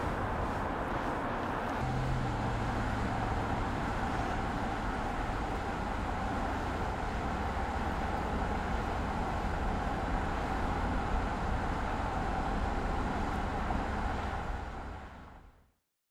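Car driving at a steady speed: engine and tyre noise on the road, with a low steady hum joining about two seconds in. The sound fades out near the end.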